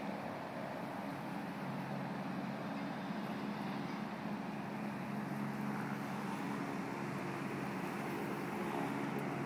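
Steady low engine hum over a broad city background noise, growing slightly louder toward the end.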